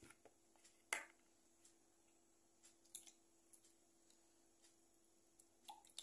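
Near silence broken by a few faint clicks: a metal spoon knocking against the bowl of sauce as it is handled and lifted, the sharpest about a second in.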